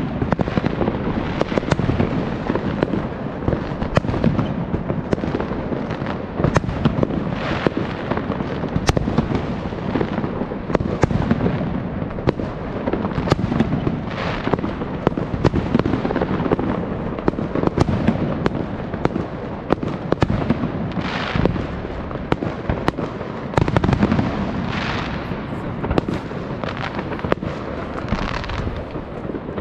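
New Year's fireworks going off continuously: many overlapping bangs and crackles over a steady rumble from shells bursting near and far.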